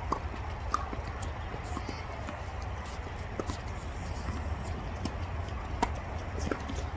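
Steady low rumble with scattered short, sharp taps and knocks. A few louder ones come near the start and about six seconds in.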